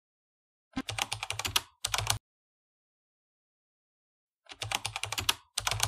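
Computer keyboard typing sound effect: two short runs of rapid keystrokes, one about a second in and another near the end, with silence between.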